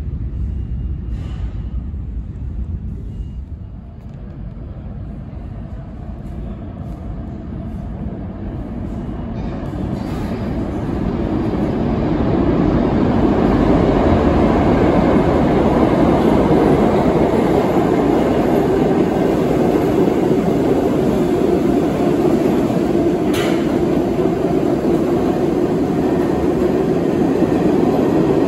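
New York City subway express train running through a local station on the far track without stopping. Its steel wheels on the rails rumble faintly at first, swell from about eight seconds in, then hold a steady loud running noise, with one sharp click late on.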